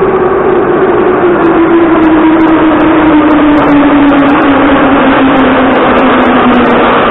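Metro train pulling into the station, loud and steady, with a whine that slowly falls in pitch as the train slows.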